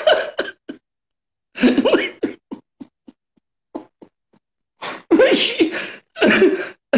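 A man laughing hard, in several loud bursts with short silent gaps between them.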